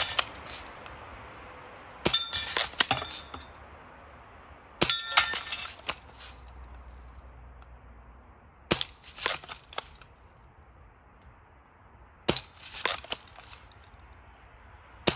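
Red Ryder lever-action BB gun fired four times a few seconds apart, with a fifth shot right at the end; each shot is followed by about a second of clinking and ringing as the BB strikes the metal spinning targets.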